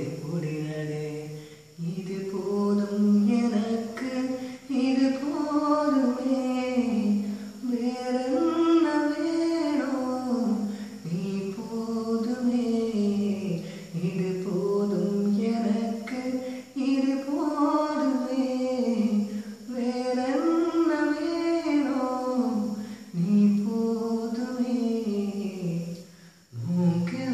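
A young man singing solo and unaccompanied, a melodic song of long held notes whose pitch slides and turns, with short pauses between phrases.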